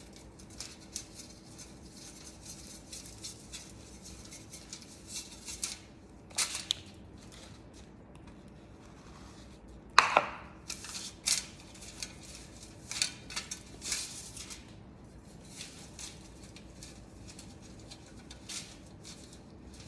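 Light taps, clicks and scrapes of a brush and mixing bowl as bleach paste is scooped and dabbed onto wig lace, with one sharper knock about halfway through.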